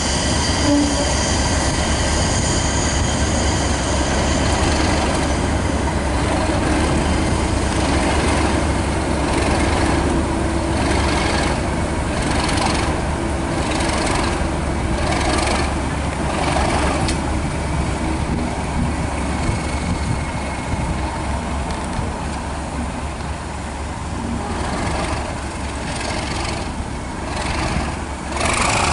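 British Rail Class 37 diesel locomotive's English Electric V12 engine running at low power with a deep, steady hum as the locomotive moves slowly along the track, a little louder near the end.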